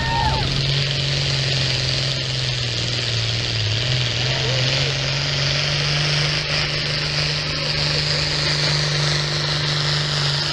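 Diesel pulling tractor's engine running flat out at steady high revs under load as it drags a weight-transfer sled, a steady unbroken drone.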